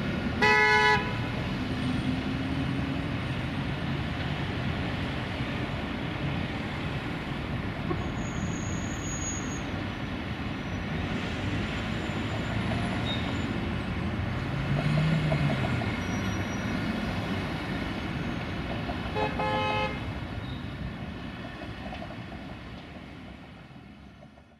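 City street traffic, vehicles' engines and tyres running steadily, with a vehicle horn giving two short toots, one about half a second in and one about 19 seconds in. The traffic sound fades out near the end.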